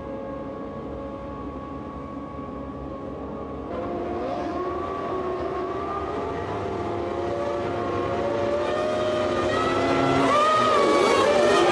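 Several Formula One racing engines at once: a steady hum at first, then from about four seconds in the engines rev, their pitches rising and falling over one another and getting louder toward the end.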